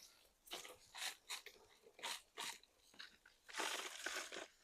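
Hands digging through potting soil in a fabric grow bag while harvesting sweet potatoes: a handful of short, faint scrapes, then a longer scraping stretch about three and a half seconds in.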